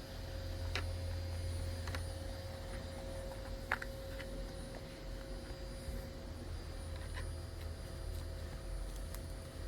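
Steady low hum with a faint, constant higher tone and a few light clicks.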